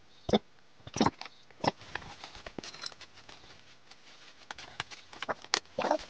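Handling of a MacBook Pro laptop: a series of sharp clicks and knocks as its lid is opened and hands press on the case, with three loud ones in the first two seconds and a cluster of lighter clicks near the end.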